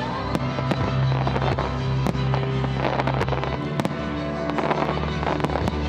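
Fireworks shells bursting in quick succession, with sharp reports and crackling, over music with sustained tones played for a display choreographed to music.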